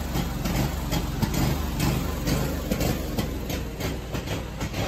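Scag Tiger Cat II zero-turn mower's engine running unevenly at idle. The rough running is the sign of a weak battery, though it is starting to smooth out here and there.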